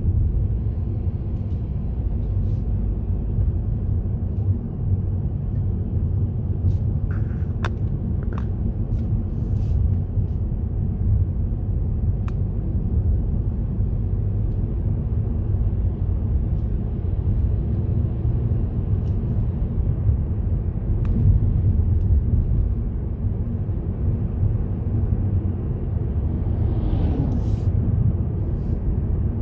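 Steady low rumble of a car driving along a road, tyre and engine noise at an even speed, with a few faint clicks about a quarter of the way in.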